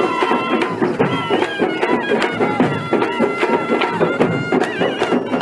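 Folk dance music: a shrill reed wind instrument plays a wavering, ornamented melody over a steady beat of large shoulder-slung drums.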